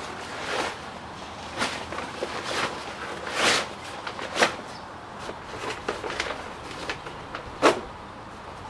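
Fabric parasol cover rustling and swishing as it is pulled down and fitted over a crane, in a string of brief swishes, with a sharper snap about halfway and another near the end.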